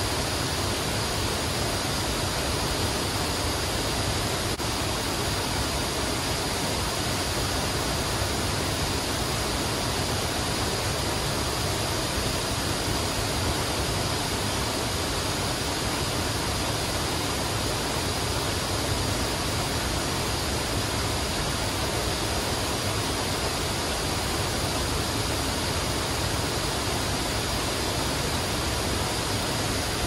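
A wide curtain waterfall, many streams pouring over a cliff into a plunge pool, making a steady, even rush of falling water.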